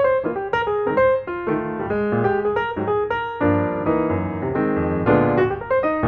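Background music: a piano melody of quick, evenly played notes.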